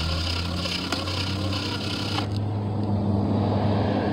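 Hoverboard hub motor running with a steady low hum, its tire scrubbing against asphalt.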